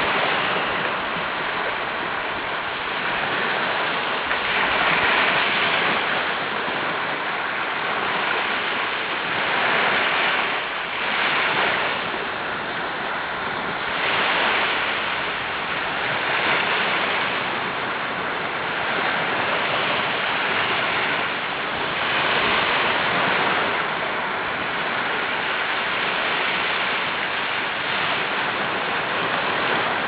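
Sea surf: a steady rush of water with waves swelling and washing in about every five or six seconds.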